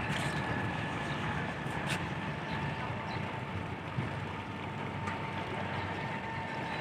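Cargo barge's engine running steadily under way, with a steady whine above it and water rushing and splashing along the hull.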